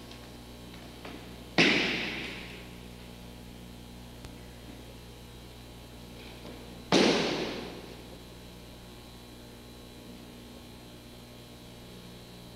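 Two heavy thuds about five seconds apart, each with a short echoing tail: the partner landing a breakfall on the mat at the end of a shihonage (four-direction throw). A steady mains hum runs underneath.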